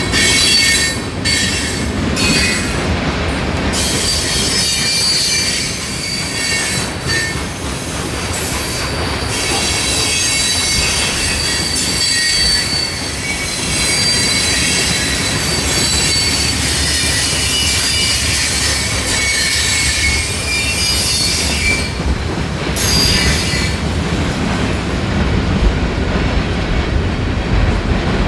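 Freight train cars rolling past with a steady low rumble and wheel flanges squealing against the rail in high, thin tones that come and go, dying away near the end.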